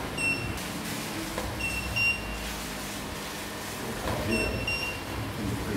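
Photography gear at a studio shoot beeping: short, high electronic beeps, mostly in close pairs, sounding three times over steady room noise.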